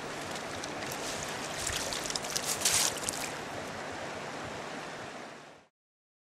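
River water running steadily, with a patch of louder crackling and rustling between about one and a half and three seconds in. The sound fades out to silence a little after five seconds in.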